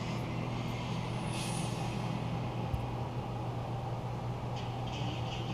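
Steady low background hum, with a few faint, light handling sounds over it.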